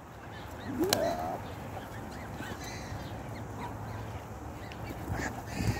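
One short waterfowl call about a second in, rising in pitch, followed by fainter calls and pecking sounds from the feeding flock.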